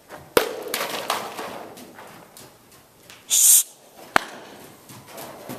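A young mare moving loose in an indoor arena: soft hoofbeats in the dirt footing, two sharp cracks about half a second in and about four seconds in, and a short loud hiss a little after three seconds.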